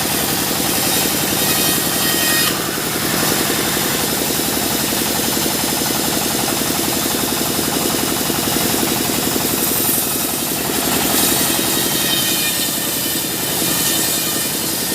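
Sawmill machinery with an engine running steadily at a fast, even pulse. A high hiss over it rises and falls a few times.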